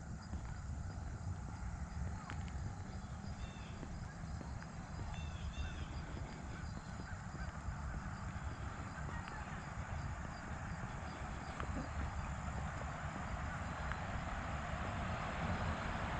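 Outdoor park ambience: a steady low rumble under a few short, high bird calls a few seconds in, with a rushing noise building toward the end.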